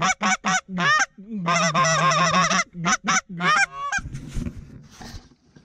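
Goose honking and clucking: a quick run of short, clipped notes, one longer honk in the middle, then a few more short notes. It stops about four seconds in.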